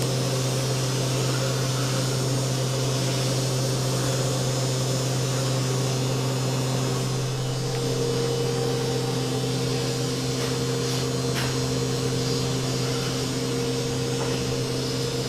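Steady droning hum of machine-shop equipment, with a low constant drone and a couple of fainter steady tones that settle to new pitches about halfway through.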